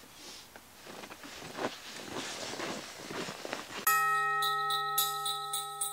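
Scuffing and rustling of hands-on work in the snow, then music starts abruptly about four seconds in: held bell-like tones over a repeating bright jingle, louder than the work sounds.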